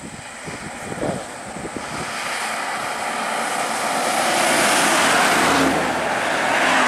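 A bus drives past close by, followed by a car. The engine and tyre noise grows steadily louder, loudest in the second half.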